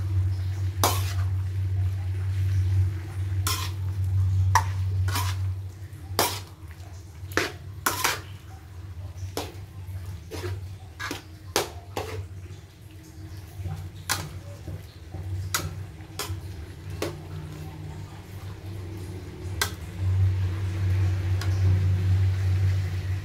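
Metal spatula clanking and scraping against a steel wok while stir-frying vegetables, with irregular sharp clinks over a steady low hum. The hum fades in the middle and comes back near the end.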